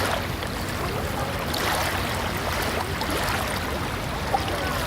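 Beach ambience: a steady wash of surf with faint, scattered voices of a light crowd.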